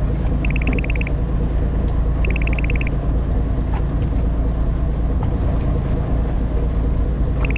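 Fishing boat's engine running with a steady low rumble. A quick run of rapid high-pitched beeps sounds three times: about half a second in, near the middle and near the end.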